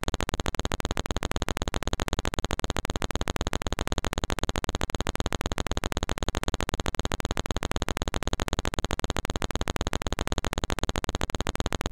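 A rapid, perfectly even stutter of about a dozen pulses a second, starting and cutting off abruptly: the chopped-up audio of fast-forwarded footage.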